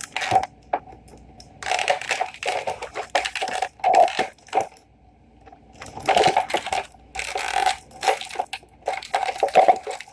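Plastic toy packaging crunching and crackling as a small figure is pried and pulled out of it, in several bursts of rustling with a short lull near the middle.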